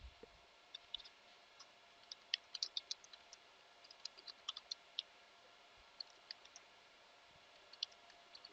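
Faint computer keyboard typing: irregular keystroke clicks in small clusters.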